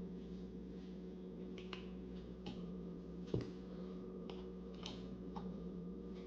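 Scattered sharp clicks and light metallic taps from tools and parts being handled while working on a scooter wheel, about seven in all, with one louder knock a little past halfway, over a steady low hum.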